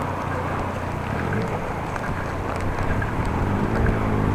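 Wind rushing over an action camera's microphone while riding a bicycle, with steady road and traffic noise that grows a little louder near the end.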